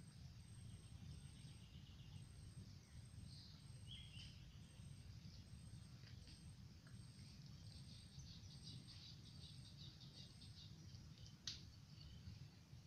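Near silence at a pond side: a low steady rumble under faint bird chirps and a short fast trill, with a high insect chirp repeating about twice a second until near the end. A single sharp click sounds about eleven seconds in.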